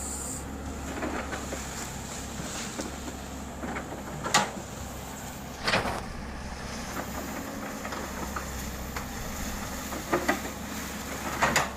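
Excavator's diesel engine running steadily, with four sharp knocks, the loudest about four and a half seconds in.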